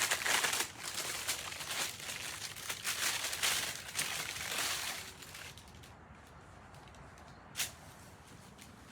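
Packaging crinkling and rustling as a mail package is handled and opened to get at a jersey, dying away after about five seconds, with one brief sharp rustle near the end.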